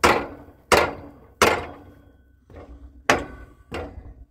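A series of sharp striking blows, about six in four seconds at a steady pace, each leaving a brief metallic ring.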